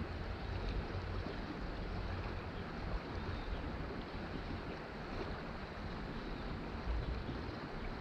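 Steady rush of flowing creek water, with a low rumble of wind on the microphone.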